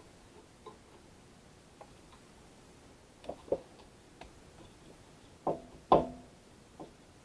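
Scattered light clicks and knocks of things being handled, with two louder pairs of knocks about three and a half and six seconds in; the last and loudest rings briefly.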